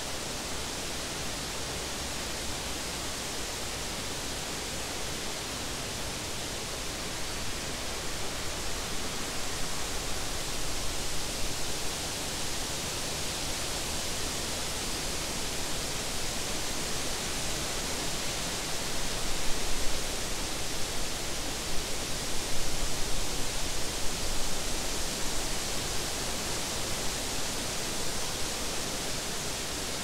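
Wind blowing through tall meadow grass and the leaves of the trees: a steady rushing rustle that swells into stronger gusts, rising about eight seconds in and strongest a little past the middle.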